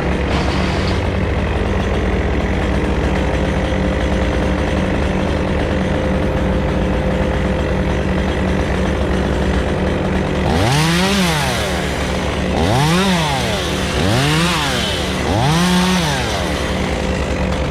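Steady engine drone for the first ten seconds or so. Then a Stihl chainsaw is revved up and let back down four times in quick succession, each rev lasting about a second.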